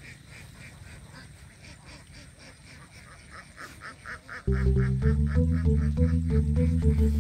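A flock of domestic ducks quacking in a quick, even run, faintly. About four and a half seconds in, loud electronic background music with a steady beat starts over it.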